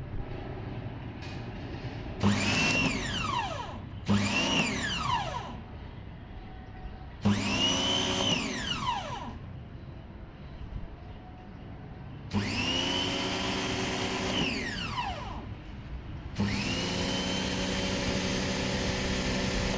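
Bosch Aquatak 130 pressure washer's electric motor and pump starting and stopping five times. Each run starts suddenly with a whine that climbs in pitch and holds, then falls away as the motor coasts down. The last two runs are longer than the first three.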